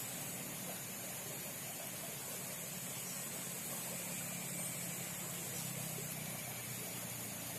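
Steady outdoor background noise with no distinct events: an even hiss with a faint low hum and a thin, high, steady tone running through it.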